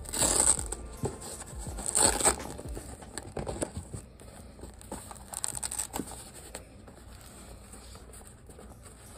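Two short rasps of Velcro on a fabric lampshade cover being fastened, right at the start and again about two seconds in, followed by softer rubbing and patting of the linen fabric by hand.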